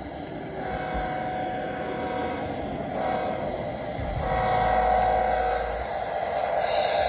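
G scale model diesel locomotive sounding its horn twice, a long blast and then a shorter one, over the rumble of its wheels and motor as it rolls closer and gets louder.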